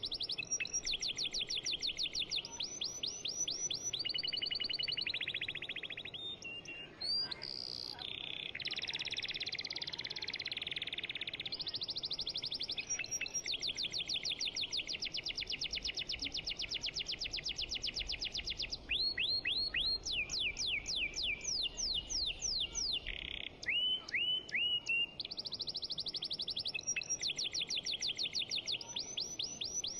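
Songbirds chirping in long, fast trills of repeated short notes, with brief pauses between the runs.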